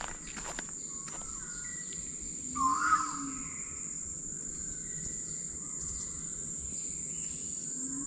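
An Asian koel calls loudly about three seconds in. Deep pigeon coos come twice, and other birds whistle faintly over a steady high-pitched insect drone in tropical forest.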